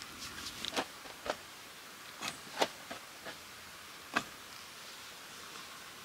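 Scattered sharp clicks and snaps, about ten in six seconds at uneven spacing, over a faint steady hiss.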